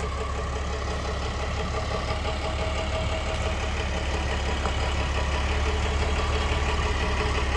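The 2006 Ford LCF ramp truck's diesel engine idling steadily, with a low, even hum.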